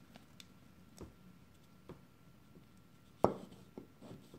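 Small steel parts of an Ithaca Model 37 trigger group clicking against the housing as the hammer is worked into place by hand: a few light clicks, with one sharper click about three seconds in.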